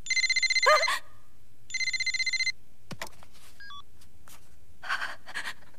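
A telephone rings twice with a rapid trilling electronic ring. A short voice sound comes over the end of the first ring, and a single click follows about three seconds in.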